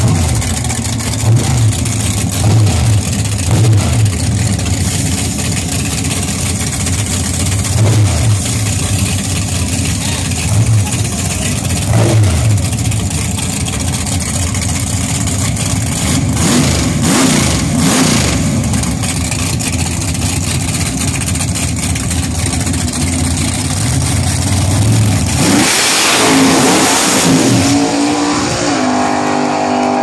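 Drag car's engine running at a loud, uneven idle on the starting line, swelling every second or two. About 25 seconds in it launches with a loud rush, and the engine note climbs steadily as the car accelerates away down the strip.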